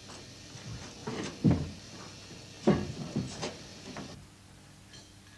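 A run of sharp bangs, about five in three seconds, the loudest two near the start of the run, followed by a faint steady hum.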